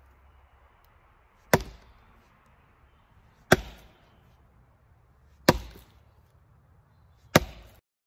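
Four heavy axe chops into wood, about two seconds apart, each a sharp crack with a short fading tail.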